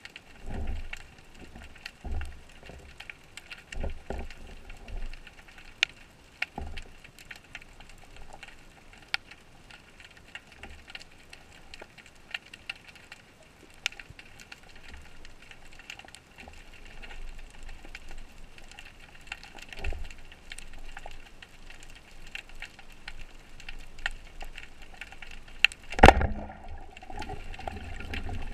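Underwater ambience heard by a diver's camera: steady hiss with many scattered sharp clicks and occasional low thumps. Near the end a single loud sharp crack, a speargun firing, followed by a louder low rumble.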